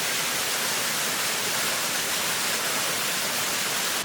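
Santa Ynez Falls, a seasonal waterfall, pouring steadily: an even, unbroken rushing hiss.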